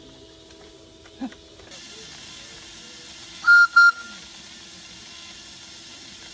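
Miniature steam locomotive venting steam with a steady hiss that starts a couple of seconds in, then two short, loud toots of its steam whistle near the middle, with the hissing going on after.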